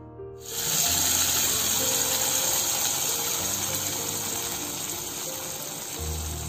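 Hot ghee with fried cashews and raisins sizzling as it hits the hot milk payasam: a steady hiss that starts about half a second in and slowly fades.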